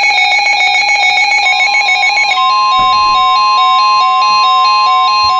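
Electronic beeping tones: a chord of tones pulsing rapidly for about two seconds, then a steady high tone over a quick, evenly repeating back-and-forth pattern of beeps.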